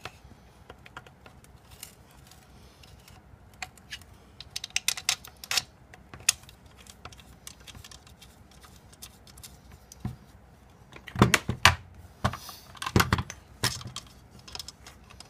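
Small metal parts clicking and rattling by hand: machine screws and aluminium spacers handled and driven while a drive motor is screwed back into its mount. The clicks come in scattered clusters, loudest about three quarters of the way through.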